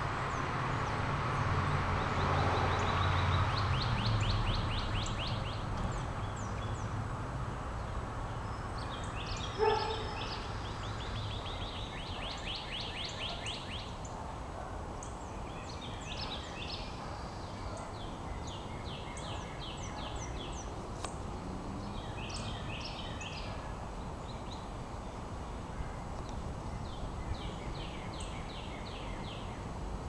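Several backyard songbirds singing and calling together, with repeated rapid trills and short high chips. A low rumble underlies the first few seconds, and a single louder, lower call stands out just before ten seconds in.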